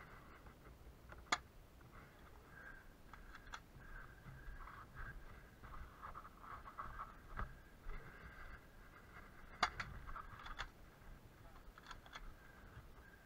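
Sharp cracks of airsoft fire: two loud ones about eight seconds apart, with a few fainter clicks between and after, over a faint steady background.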